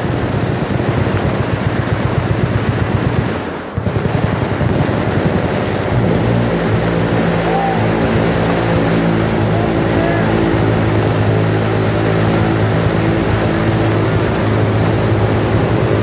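Sustained automatic machine-gun fire, shots coming too fast to count, with a brief lull about four seconds in. From about six seconds in the fire merges into a continuous buzzing drone.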